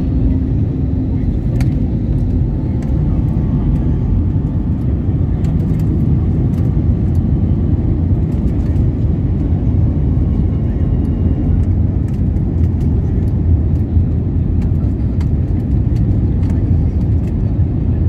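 Steady low rumble inside the cabin of an Airbus A321neo in flight: engine and airflow noise.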